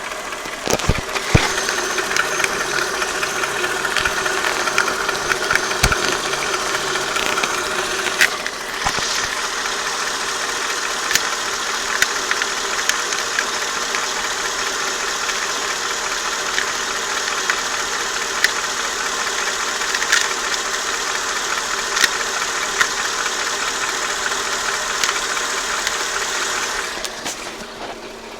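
Mercedes-Benz M113 4.3-litre V8 of a W220 S430 running warmed up, with a slight knock that the owner says goes away with a little throttle; the cause is unknown to him. The engine gets louder about a second in and drops back near the end, with occasional sharp clicks over the steady running.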